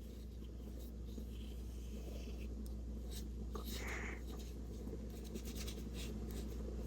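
Faint, irregular scratchy strokes of a small synthetic paintbrush working acrylic paint across gesso-primed mixed-media paper, over a steady low hum.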